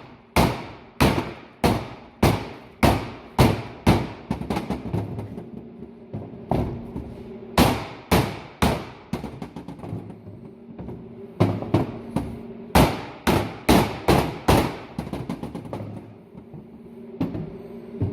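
Repeated hammer blows on a closing wheel's plastic hub rim, bashing the rim halves together until they seat. Heavy strikes come about two a second for the first few seconds, then lighter taps, then another run of heavy blows in the second half that tapers off.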